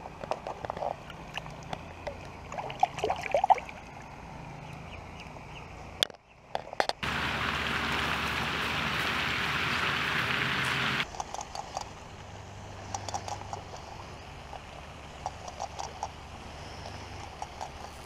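Water sloshing and small splashes as a largemouth bass is let go by hand in shallow water. About seven seconds in, a steady hiss begins and cuts off abruptly some four seconds later. Then soft water lapping and scattered light clicks follow.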